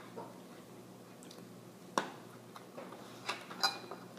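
A few light clicks and taps of objects being handled on a kitchen counter, with one sharper click about two seconds in, over a faint steady hum.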